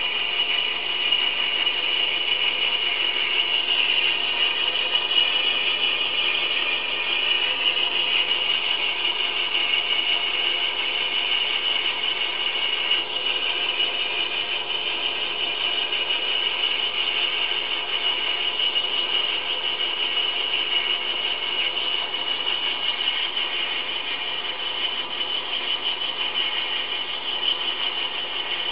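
Einhell BT-ML 300 mini lathe running under load as a twist drill in the tailstock bores into a spinning brass rod, a steady high-pitched whine over the machine's motor hum.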